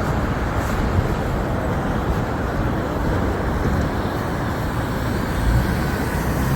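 Steady road traffic noise from vehicles passing along a busy street.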